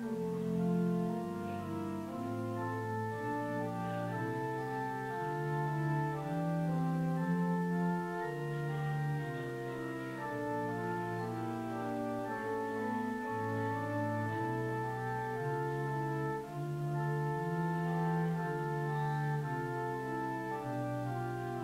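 Organ playing the postlude: sustained chords that change every second or so, at an even level.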